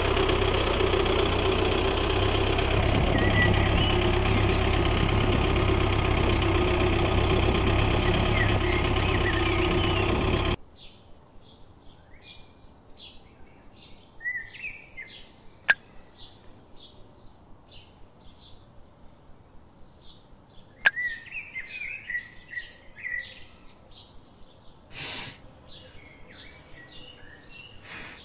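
A miniature DIY tractor's small motor runs steadily for about ten seconds, then cuts off suddenly. Birds chirp for the rest, with two sharp clicks partway through.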